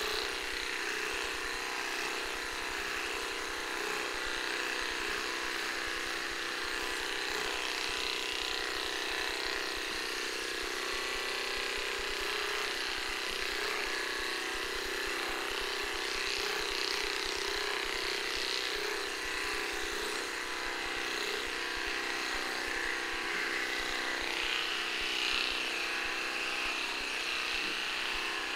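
Cordless electric dog clippers running with a steady buzz as they are worked through a small dog's coat.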